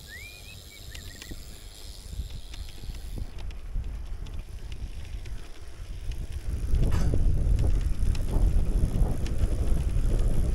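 Wind noise on the microphone and rolling road rumble while riding a bicycle, with a short rising chirp near the start. About two-thirds of the way through, the rumble becomes much louder and rougher.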